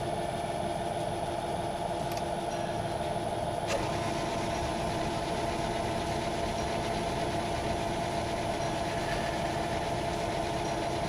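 Myford metal lathe running steadily, its motor and gearing giving an even hum, with a single sharp click a little under four seconds in.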